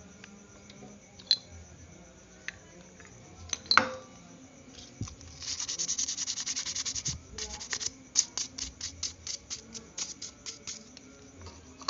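Small metal brake parts clink a few times, one sharp ringing clink among them. Then a hand scrapes and rubs a small metal part of the scooter's front disc-brake caliper: first a dense scrape, then a run of quick even strokes, about five a second.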